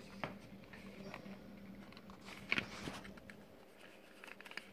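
Fingers handling and opening a small cardboard 12AX7 tube box: faint scattered rustles and clicks, a louder scrape about two and a half seconds in, and a quick run of small ticks near the end.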